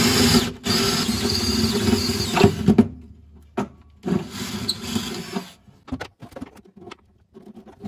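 20-volt DeWalt cordless drill boring down through the floor with a spade bit. It runs hard under load for nearly three seconds with a brief stop near the start, then runs again more lightly for about a second and a half. A few clicks and knocks of handling follow.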